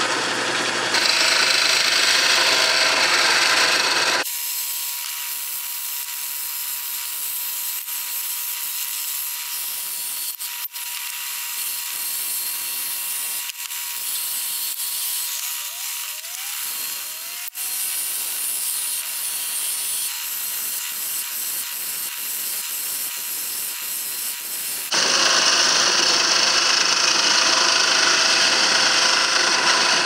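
Wood lathe spinning a small blank while a hand-held turning gouge cuts it: a steady scraping hiss of the cut, loud for the first four seconds and the last five. Between, the cutting is lighter and quieter, over a faint steady high whine.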